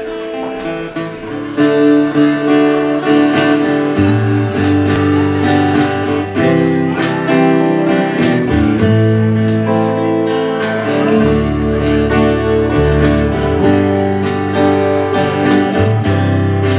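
Live band playing: a strummed acoustic guitar with electric guitars and drums, getting louder about a second and a half in, with a bass line coming in around four seconds.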